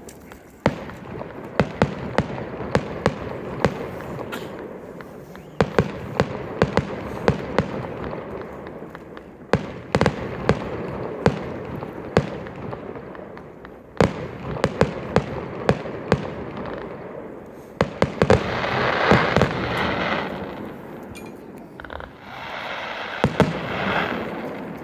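Fireworks crackling: irregular sharp cracks, often several a second, over a continuous hiss. Near the end a louder fizzing hiss swells up twice.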